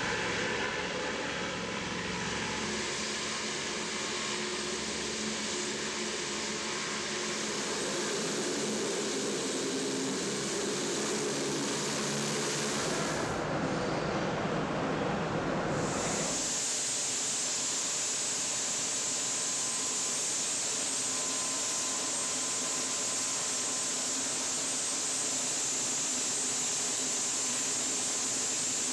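LCAC hovercraft's gas turbines and lift fans running steadily over open sea, mixed with the hiss of thrown spray. About sixteen seconds in this gives way to a steady high hiss of machinery noise.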